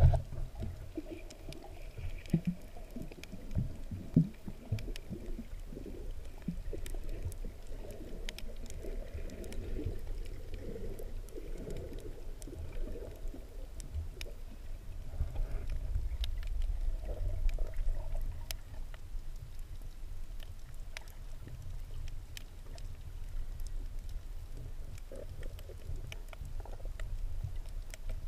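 Muffled underwater ambience over a reef: a steady low rumble of moving water with irregular murky swells and many scattered sharp clicks.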